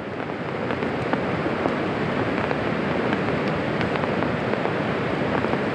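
Steady rain and wind, an even hiss with a few scattered drop taps.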